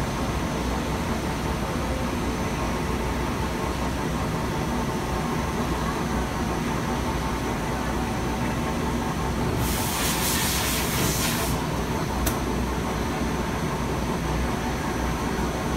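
Steady hum and drone of running machinery in a machine shop. About ten seconds in, a hiss lasts roughly two seconds, followed by a single sharp click.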